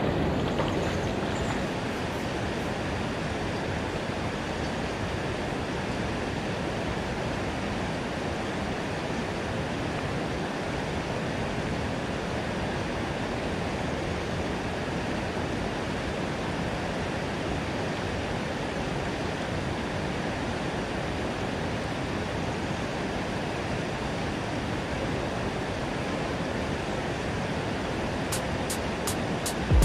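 Rushing water of a mountain stream: a steady, even wash of noise.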